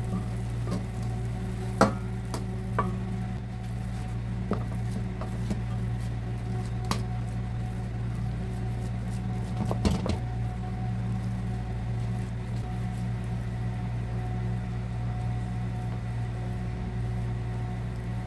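Wooden spatula scraping and tapping as sticky rice cake (biko) is scooped out of a wok and pressed flat in a metal tray, a few sharp knocks standing out, the loudest about two seconds in. A steady low hum runs underneath.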